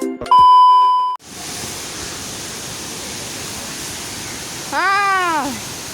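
A loud, steady electronic beep lasting about a second, then an abrupt cut to the steady rush of a waterfall, with one short rising-and-falling voice call about five seconds in.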